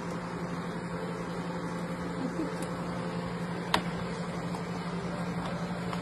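Steady low hum of a kitchen appliance, with one sharp click of a metal batter scoop against the brownie pan a little under four seconds in.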